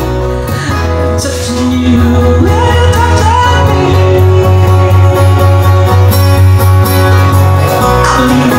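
Live band playing a song, a voice singing over a steady bass line and sustained instrument notes.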